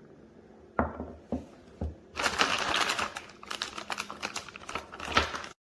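Hard clicks and knocks of objects being handled: three separate knocks in the first two seconds, then about three seconds of dense clicking clatter that cuts off abruptly near the end.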